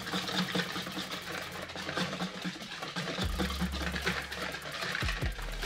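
Wire balloon whisk beating eggs and sugar in a mixing bowl: a quick, even rhythm of wire strokes, several a second, clicking against the bowl. A low steady hum comes in about three seconds in.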